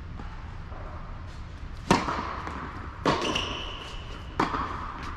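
Tennis rally on an indoor court: a tennis ball struck by Yonex rackets and bouncing, three sharp echoing hits about a second apart, the first the loudest. A short high squeak sounds between the second and third hit.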